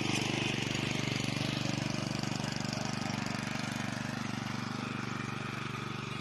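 Honda mini tiller's small single-cylinder four-stroke engine running steadily under load as its tines churn the soil, with a fast even chugging. It gets a little quieter toward the end.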